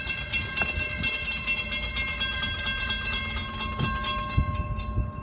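Railroad grade-crossing warning bell ringing rapidly while an approaching freight train's horn sounds in steady held notes over a low rumble.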